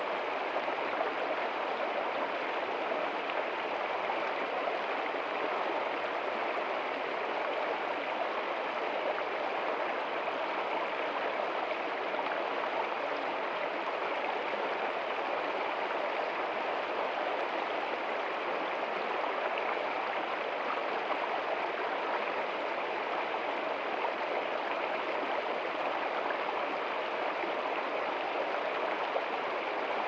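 Small shallow stream running over rocks and a low cascade: a steady rush and splash of water that does not change.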